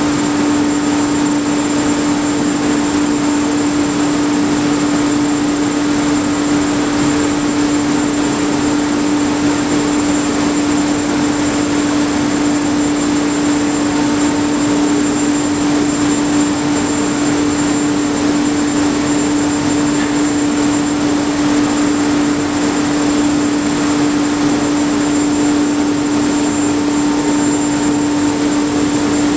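Heavy machinery running steadily at constant speed: a loud, unchanging drone with a strong hum and a hiss, no rise or fall.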